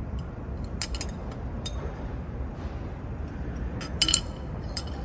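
Light clicks and clinks of a glass bottle being handled, the loudest a sharp clink about four seconds in, over a steady low rumble of room noise.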